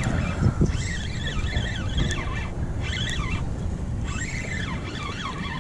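Wind rumbling on the microphone, with high wavering chirps coming and going over it.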